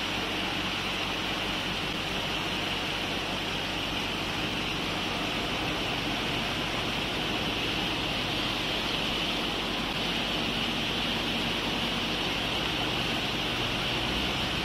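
Steady rushing and splashing of water in a flooded barge hold, from a pressure-hose jet washing down a sand pile and water gushing from a pipe outlet, over a steady low machine hum.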